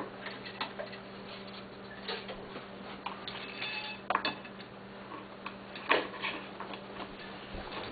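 Light, scattered clicks and clinks of small metal pieces being handled on a work surface, the loudest ones about four and six seconds in, over a steady low hum.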